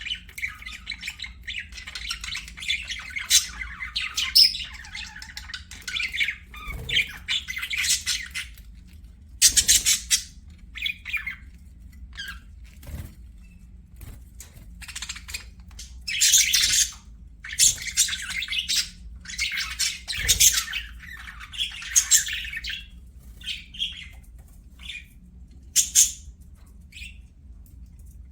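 Budgerigars chattering and warbling, mixed with harsh squawks. The chatter is continuous for the first eight seconds or so, then comes in scattered loud bursts with short pauses between.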